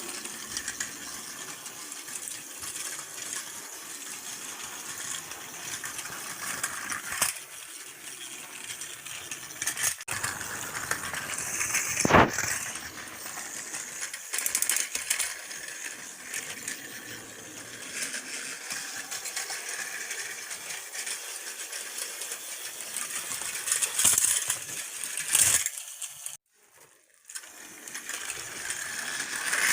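Battery-powered Plarail toy trains running on plastic track: a steady high whir from the small motors, with light rattling and clicking as the wheels pass over the track joints. There is a sharper clack about twelve seconds in, and the sound drops out briefly near the end.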